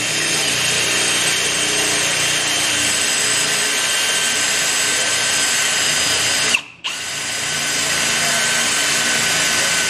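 Milwaukee cordless drill boring a hole through a small stainless steel bracket, its motor running steadily under load with a high whine. It stops briefly about two-thirds of the way through, then starts again.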